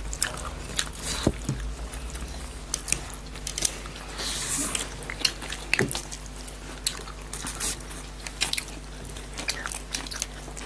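People eating buff chowmein: chewing and biting mouth noises, with many short sharp clicks and a brief hiss about four seconds in.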